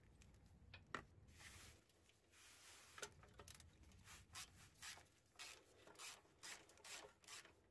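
Faint scratchy clicking from a 13 mm socket on a long extension turning out a starter mounting bolt. A few single clicks come early, then short bursts about twice a second from about halfway through, as the bolt is worked loose stroke by stroke.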